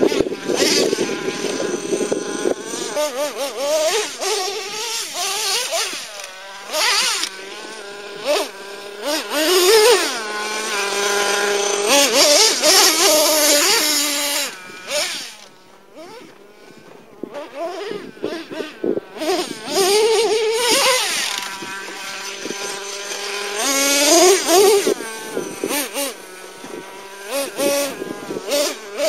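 Traxxas T-Maxx nitro RC truck's modified 3.3 two-stroke glow engine with a drilled-out resonator pipe, revving hard and easing off again and again, its pitch rising and falling with the throttle. It drops to a quieter running spell for a couple of seconds a little past the middle.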